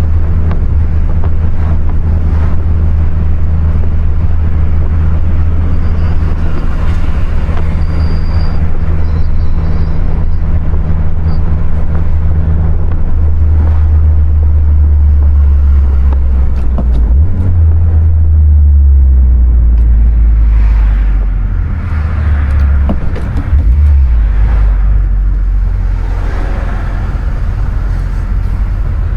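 2020 Honda Civic Si's 1.5-litre turbocharged four-cylinder engine droning while driving, with steady road noise. The engine note drops to a lower pitch in several steps over the second half as engine speed changes.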